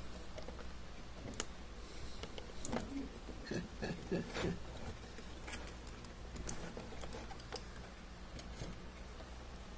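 Light plastic clicks and handling rattle from an RJ45 plug on a Cat6 cable being worked in and out of a network cable tester's port, busiest a few seconds in.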